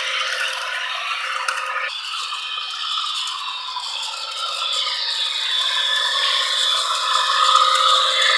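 Model train running on its track: a continuous rattle of wheels on the rails with a motor whir. It grows louder near the end as the locomotive comes close past.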